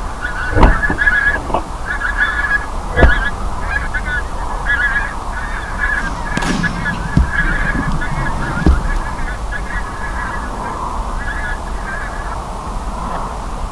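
Geese honking continuously, many short calls overlapping from a flock in flight. A few dull thumps stand out, the loudest about half a second and three seconds in.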